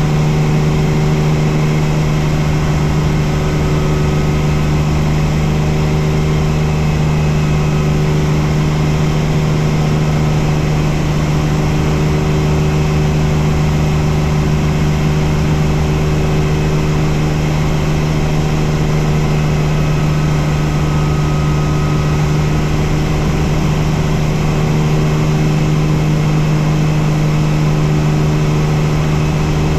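Bell 47 helicopter running on the ground, its piston engine and main rotor turning at a steady speed: a loud, even drone with a strong low hum.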